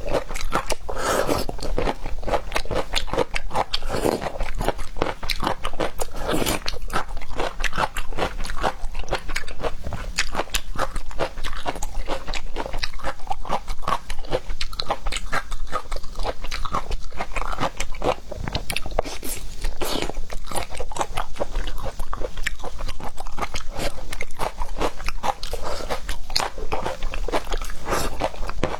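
Close-miked chewing and biting of seafood, a dense, continuous run of crunches and mouth clicks.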